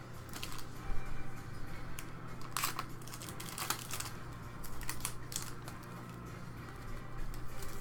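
Scattered light clicks, taps and rustles of hands handling things at a table, over a faint steady low hum.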